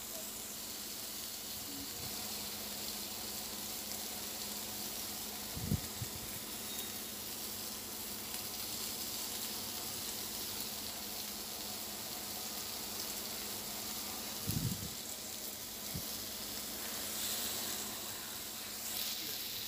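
Minced-meat kebab patties sizzling steadily on a hot ridged grill, the raw ones searing on their first side. Two short soft bumps come about six and fifteen seconds in.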